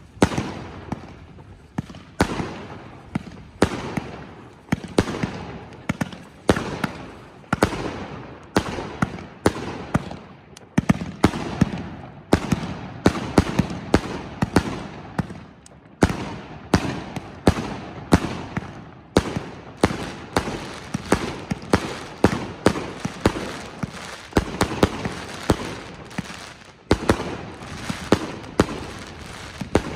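A 186-shot firework cake firing 20, 30 and 45 mm shells in rapid succession: sharp launch and burst reports about one to two a second, with crackle between them.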